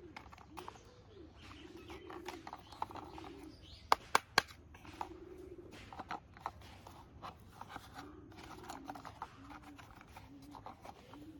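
Clicks and taps of a plastic toy jeep being handled and turned over, with three sharp clicks close together about four seconds in. Behind them a bird calls over and over in low notes that rise and fall.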